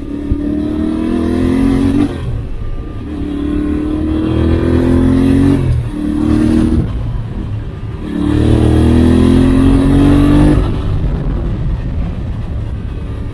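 Yamaha Ténéré 700's CP2 parallel-twin engine revving up under acceleration three times, rising in pitch on each pull and dropping away between them as the throttle is rolled off or a gear is changed, then running lower and steadier near the end.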